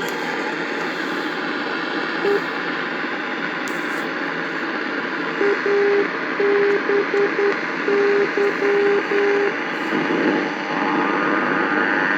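Radio receiver hissing with static while it picks up a signal. A single low beep comes about two seconds in, and from about the middle there is a run of short and longer beeps of one steady tone in an irregular on-off pattern.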